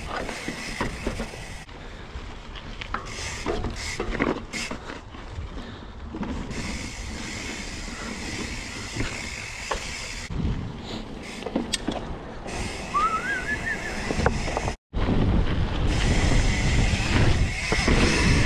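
Wind rushing over the microphone of a camera on a moving mountain bike, with the tyres running over a dirt trail and the bike rattling and clicking over bumps. A short rising whistle sounds about two-thirds of the way through, and the noise gets louder after a brief break near the end.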